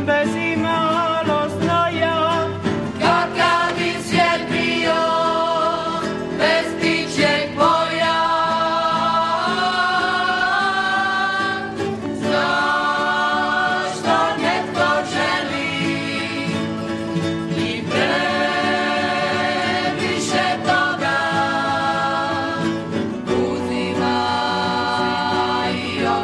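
A song sung in Croatian by several young voices, some lines solo and some together, over a strummed acoustic guitar.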